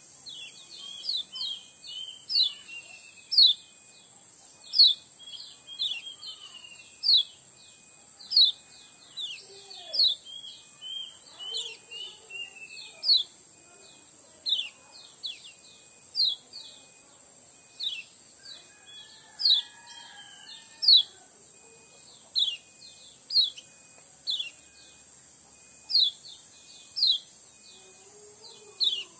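Kecial kuning, a yellow white-eye, calling: sharp, high chirps that sweep downward, about one a second, with quicker runs of softer twittering between the loudest notes.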